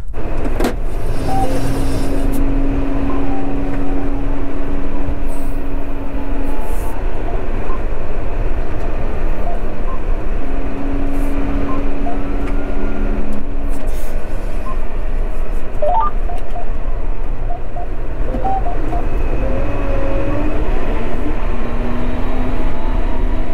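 John Deere 6215R's six-cylinder diesel engine heard from inside the cab, running as a steady low drone, with a steady tone that comes and goes twice in the first half. It is under heavy load, pulling a Kuhn Cultimer cultivator about 23 cm deep through heavy, compacted soil.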